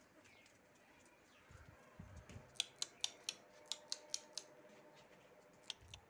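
A quick run of about eight sharp clicks over roughly two seconds, with soft low thumps just before them.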